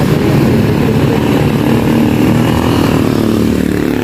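Roadside traffic noise, led by a nearby motor vehicle engine's steady low rumble.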